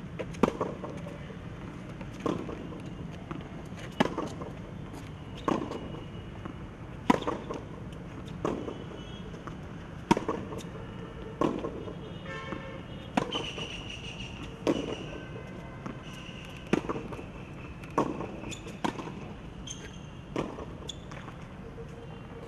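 Tennis rally on a hard court: the ball struck back and forth by racquets, a sharp pock about every one and a half seconds, with smaller knocks of the ball bouncing in between.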